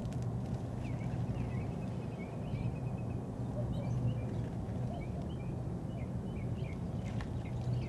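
Small birds chirping in short, frequent calls over a steady low hum, which is the loudest sound throughout.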